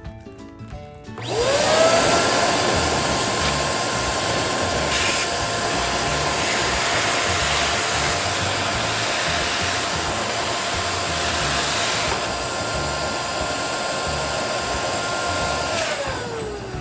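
Electric balloon pump running as it inflates a balloon. It spins up about a second in, runs steadily, and winds down near the end.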